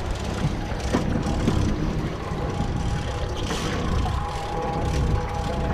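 Boat engine running steadily under wind and water noise, with a steady higher whine joining about three and a half seconds in.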